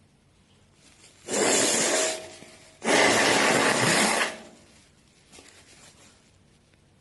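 A person blowing their nose into a tissue: two hard blows, the first about a second long and the second, starting about a second and a half in after it, a little longer.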